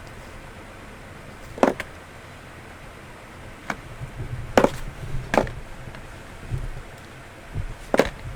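Five sharp knocks at uneven intervals, with duller low thuds between them around the middle.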